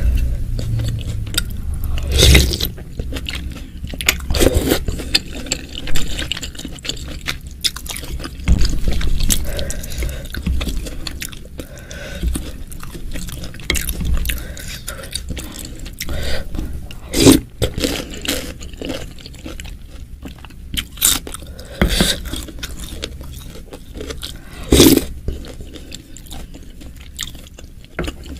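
Close-miked eating sounds: chewing mouthfuls of bakso and kikil in spicy broth, with a wooden spoon scraping and scooping in the bowl. Sharp mouth and spoon clicks come throughout, several of them loud.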